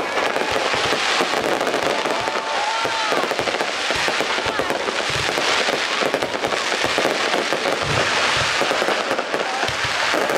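Fireworks going off nonstop: a dense crackle of many small bangs, with several deep booms of shells bursting.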